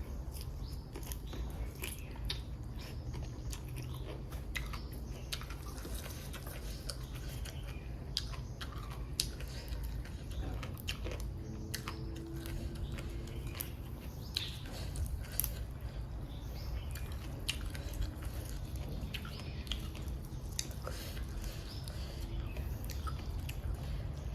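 A person chewing and eating fresh shellfish close to the microphone, with many irregular small clicks and snaps, over a steady low hum.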